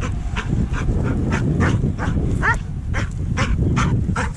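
A flock of sheep on the move with a herding dog running close by, over a steady wind rumble on the microphone; short, sharp sounds come about two or three times a second.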